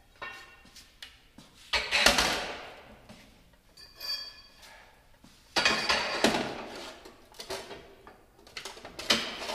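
Steel pry bars and hand tools clanking and scraping against a steel cart frame as they are set into its holders. Loud clatters come about 2 seconds in and again from about 5.5 seconds, and a couple of the knocks ring on briefly like struck metal.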